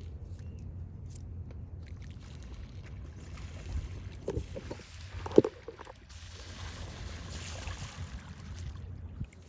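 Water splashing and sloshing, with a few knocks and one sharp knock about five seconds in, over a steady low hum.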